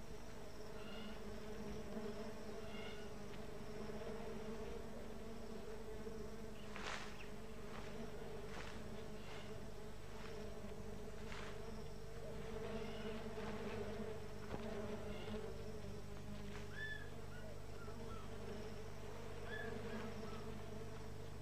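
Steady buzzing hum of a dense swarm of lake flies, with a few brief swishes about seven to twelve seconds in.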